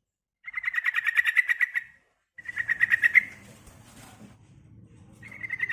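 Female yellow-vented bulbul (trucukan) calling in rapid chattering trills: three bursts of quick, evenly spaced notes at a steady pitch, the last starting near the end.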